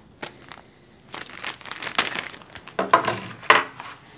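Rustling and crinkling of paper and plastic packaging being handled, with scattered clicks and two sharp knocks about three seconds in.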